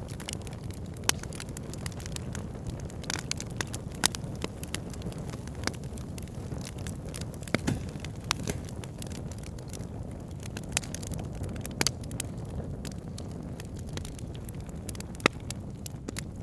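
Fire burning in a fireplace: a steady low rush of flame with constant crackling, and a handful of louder sharp pops scattered through.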